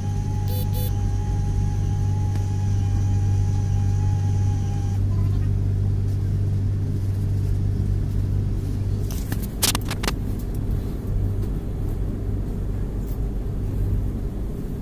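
Steady low rumble and hum inside the air-conditioned executive chair car of the Tejas Express as the train pulls slowly out of the station. A high steady tone stops about five seconds in, and a short cluster of sharp clicks comes about nine to ten seconds in.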